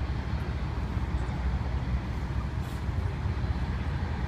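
Steady low rumble of passing road traffic, mixed with wind buffeting the microphone.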